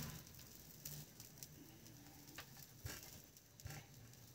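Near silence: faint room tone with a few soft, short clicks or taps.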